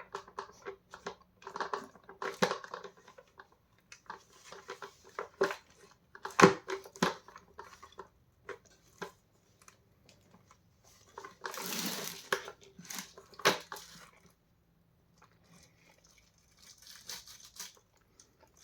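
Plastic clicking, knocking and scraping as the brush bar is worked and pulled out of a Vax Mach Air upright vacuum's floor head, with a longer rasping scrape about twelve seconds in.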